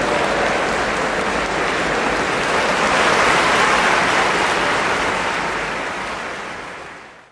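Large audience applauding, swelling a little midway, then fading away and cutting off near the end.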